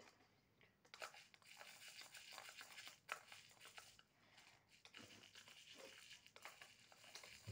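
Faint, scattered clicks and scrapes of a small spoon stirring and tapping in toy cups and dishes during pretend cooking.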